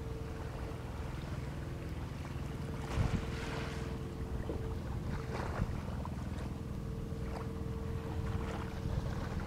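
A boat's motor running at a steady hum with a steady mid-pitched tone over it, wind buffeting the microphone, and a couple of knocks about three and five and a half seconds in.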